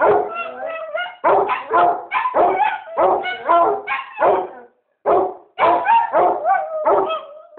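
A basset hound and a chihuahua barking in a quick run of sharp barks, about three a second, broken by a short pause a little past halfway.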